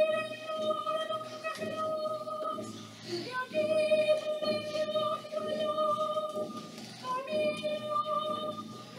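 A high voice singing long held notes in three phrases of a few seconds each, with brief breaks about three seconds in and near seven seconds, over a lower accompaniment.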